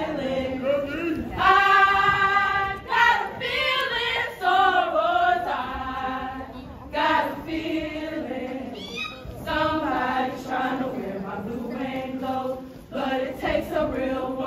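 A group of women singing and chanting in unison, with a long held note about two seconds in.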